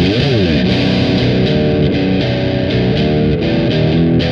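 Fender Jazzmaster electric guitar on its bridge pickup, tuned to C standard, played through a Boss DS-1 distortion pedal. A distorted riff opens with a note that slides up and back down, then moves through a run of separate notes.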